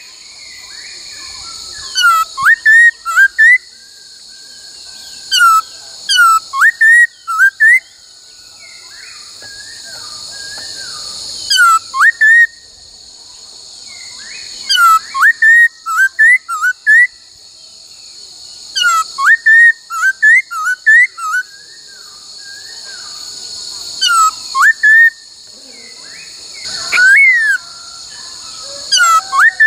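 Laughingthrush (khướu) singing: loud, clear whistled phrases of short rising and falling notes in quick groups, repeated every couple of seconds. A steady high buzzing hiss runs underneath throughout.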